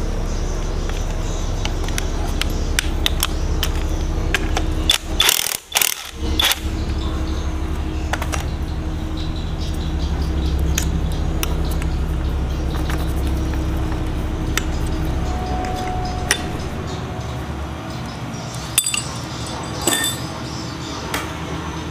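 Metal clinks and knocks of hand tools and parts while the rear clutch nut and clutch assembly are taken off a scooter's CVT driven-pulley shaft. A steady low hum runs underneath. The clatter is loudest about five to six seconds in and again near the end.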